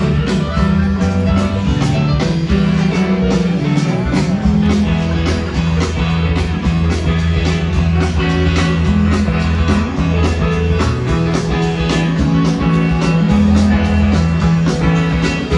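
Live rock band playing an instrumental passage, electric guitar, bass, drums and keyboards over a steady drum beat, recorded from the audience.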